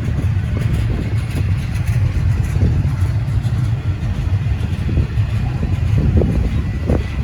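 Slow-moving intermodal freight train rolling past: a steady low rumble from the cars, with wind buffeting the microphone.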